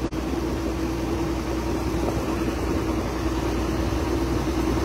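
A boat's engine running steadily, a constant droning hum under the rush of water and wind as the boat moves along. The sound drops out for an instant just after the start.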